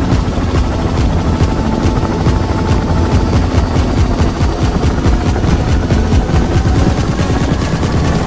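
Helicopter in flight with its doors off: loud, steady rotor and engine noise with an even, rhythmic beat of the blades, heard from inside the open cabin.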